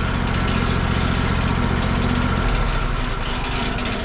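Wood-Mizer LT40 portable sawmill running, its engine holding a steady note that drops slightly in pitch about two and a half seconds in.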